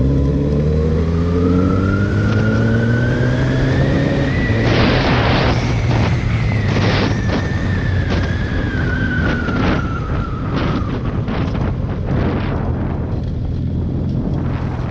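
Suzuki Hayabusa inline-four engine with its stock exhaust, pulling with revs rising for about four seconds and then slowly easing off. A string of sharp knocks and rattles runs through the middle of the stretch.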